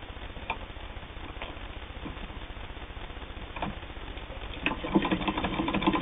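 A few separate clicks, then about three-quarters of the way through a hand-cranked Singer 99 sewing machine starts stitching with a steady rhythmic clatter, sewing through two layers of split leather.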